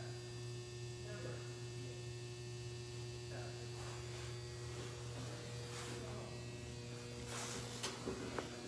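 A steady low electrical hum, with a few faint rustles and a couple of small knocks in the second half.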